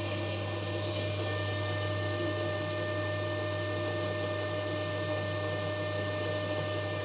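Steady electric machine hum of a metal lathe running, with a few faint light clicks.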